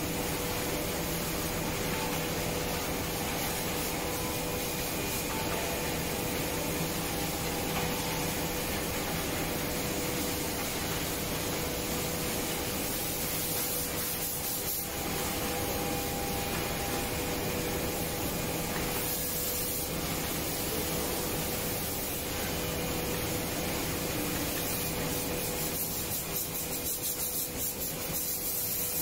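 Steady rushing machine noise, like a running fan or blower, with a faint steady hum underneath.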